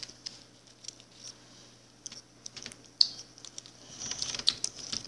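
Plastic wrapper of a Warheads sour candy crinkling and crackling in the fingers as it is unwrapped: scattered small crackles and clicks, busiest near the end.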